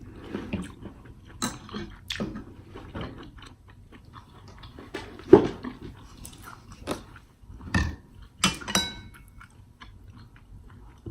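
Close-miked chewing and wet mouth smacks of someone eating, a string of irregular soft clicks with a sharper smack about five seconds in.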